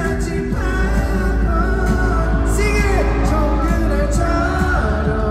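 Live pop music at a concert: a male singer singing into a handheld microphone over the band's backing, heard through the arena's sound system.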